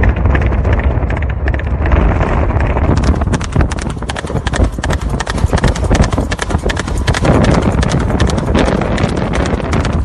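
Carousel ride running: a steady low rumble, joined from about three seconds in by rapid, dense clattering clicks.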